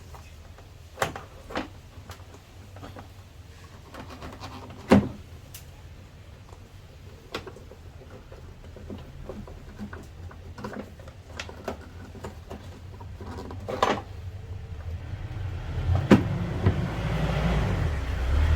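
Hard plastic knocks and clicks as a car's air intake box is handled and fitted back onto the MAF sensor, with one louder knock about five seconds in. A louder rumbling, rustling handling noise comes in for the last couple of seconds.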